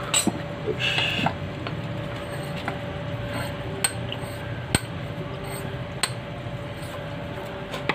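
Steel bench vise being wound shut to press a cam adaptor onto a motorcycle camshaft, with a short socket as a spacer: a handful of sharp metal clicks and clinks from the vise and steel parts, the sharpest just under five seconds in.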